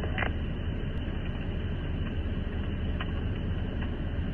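Steady hiss with a low hum from a police radio feed in a gap between transmissions.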